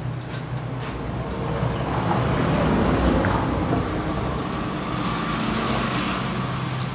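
A motor engine running steadily with a low hum, swelling louder about two to three seconds in and easing off again.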